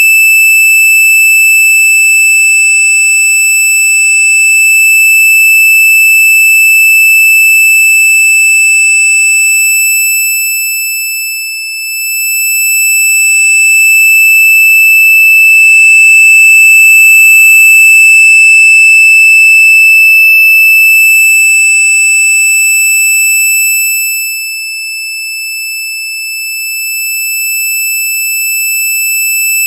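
Very loud, steady, piercing electronic tone, pitched high, with thin overtones above it: a synthesized 'most annoying sound' effect. Its loudness dips briefly about twelve seconds in and again for a few seconds near the end.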